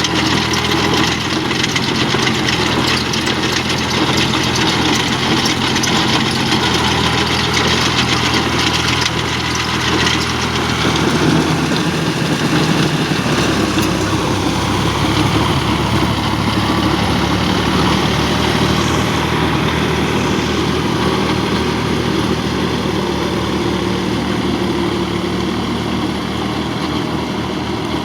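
Farm tractor engine running steadily, its note shifting to a different pitch about halfway through.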